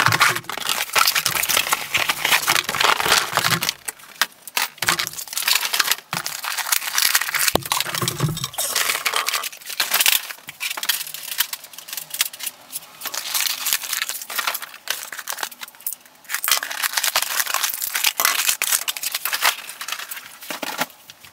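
Cardboard box and packaging being opened and unpacked by hand: irregular rustling, crinkling and tearing, with occasional knocks as parts are set down on the table.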